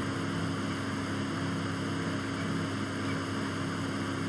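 Steady electrical hum with a low, even hiss: the recording's own background noise, with no other event standing out.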